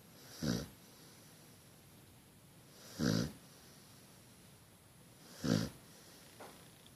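Sleeping dog snoring: three short snores about two and a half seconds apart, with a faint fourth near the end.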